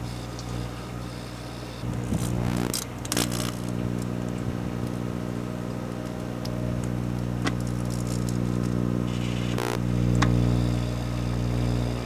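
Microwave oven running with a steady electrical hum while a mini LCD TV burns inside on the turntable. Sharp crackles and snaps come from the burning set, in a cluster a couple of seconds in and singly later on, and the hum swells near the end.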